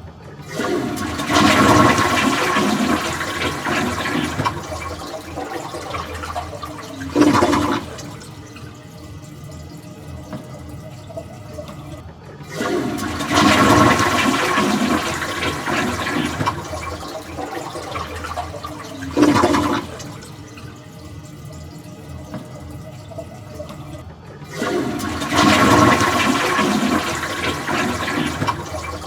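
Toilet flushing three times, about twelve seconds apart: each flush starts with a sudden loud rush of water that fades over several seconds, gives a short surge, then settles into a quieter steady hiss of the tank refilling.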